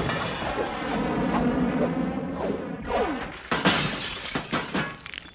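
Car window glass shattering in a run of sharp crashes over film music, the crashes coming in the second half.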